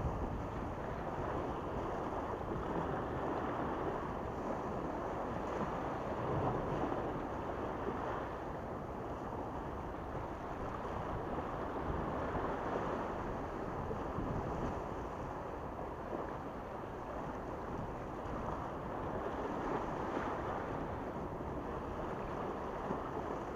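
Small sea waves washing and splashing against the rocks of a breakwater, with wind on the microphone; a steady noise that swells and eases gently.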